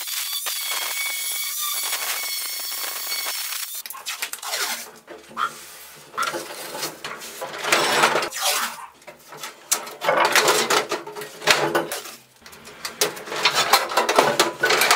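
An angle grinder runs steadily with a high whine, grinding rust off a sheet-steel toolbox, and stops about four seconds in. Then come repeated, louder metal clanks and rattles as the steel toolbox is handled and its cantilever trays are folded open.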